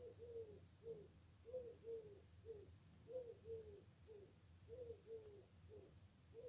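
Faint dove cooing in the background, a three-note phrase of two longer falling coos and a short one, repeated about every second and a half.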